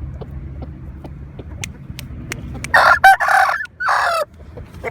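Thai game rooster crowing once: a loud crow of about a second and a half, starting near the middle, with a brief break before its long final note.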